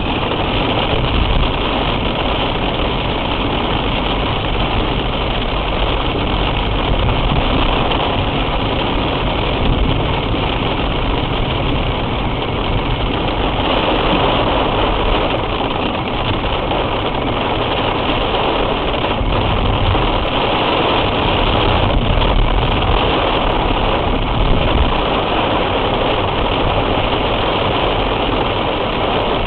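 Steady car noise heard from inside the cabin through a dashcam microphone: the engine running with a constant low rumble and road noise.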